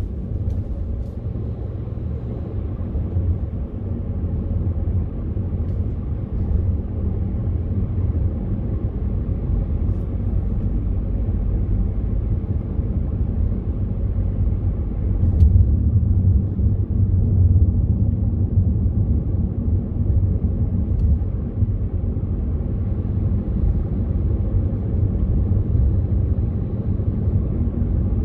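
Road and engine noise inside a moving car's cabin: a steady low rumble that swells a little about halfway through.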